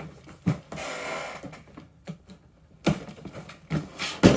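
Cardboard box being handled as its seals are torn open: several sharp taps and knocks, with a short scraping rustle about a second in.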